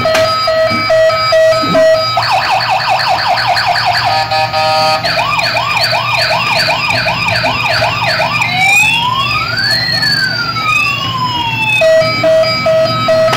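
Electronic toy police-car siren cycling through its sounds: a beeping pattern, a fast yelp from about two seconds in, a run of quick rising whoops, then a slow up-and-down wail, and the beeping again near the end.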